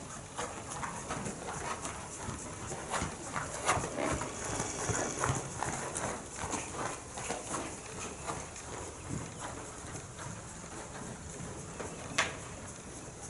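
A ridden horse's hooves striking the sand footing of a covered arena: a quick run of hoofbeats that thins out in the second half, with one sharp knock near the end.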